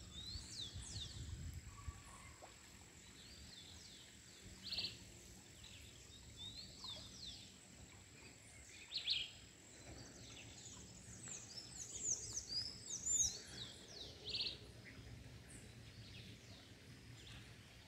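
Faint outdoor ambience of birds calling: short, quick high chirps and twittering in scattered bursts, busiest about two-thirds of the way through. A thin, steady high-pitched tone runs beneath and stops about three-quarters of the way in.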